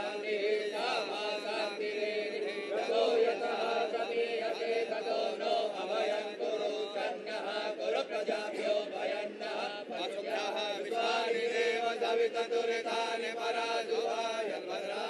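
Priests chanting Hindu Sanskrit mantras in a continuous ritual recitation, with voices holding a steady pitch.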